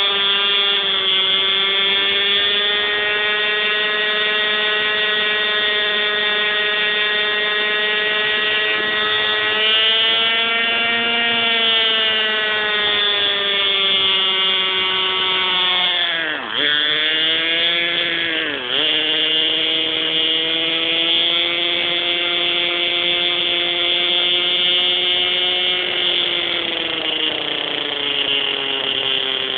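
Hirobo Shuttle radio-controlled helicopter's small two-stroke glow engine running at high speed, heard very close up through the onboard camera, with a steady high whine. About 16 seconds in, the pitch drops sharply twice and recovers. Near the end it begins to fall.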